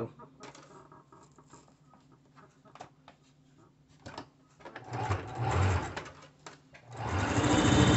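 Electric Singer sewing machine zigzag-stitching knit sweater fabric. There are a few faint clicks and a brief run about five seconds in, then the machine starts up near the end and runs steadily at speed.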